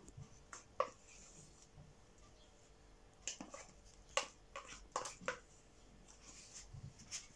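A metal spoon scraping and tapping a small tub of sour cream, several short clicks, as sour cream is spooned out into a bowl of beaten eggs.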